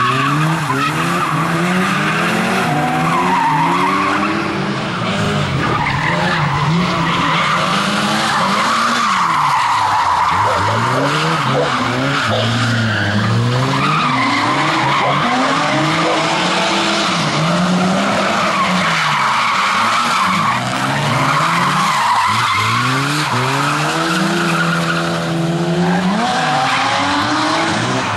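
Lada saloon's four-cylinder engine revved hard, its pitch climbing and dropping again and again as it is driven through a tight tyre slalom, with the tyres squealing and skidding through the turns.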